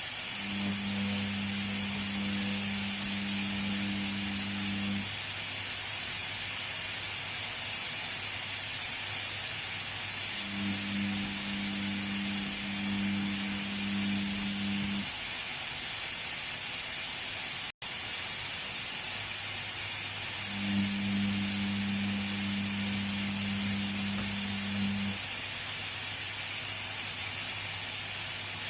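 Washing machine in a wash cycle: a steady hiss with the drum motor humming in spells of about four and a half seconds, three times about ten seconds apart, as the drum turns and pauses. The sound cuts out for a split second about two-thirds of the way through.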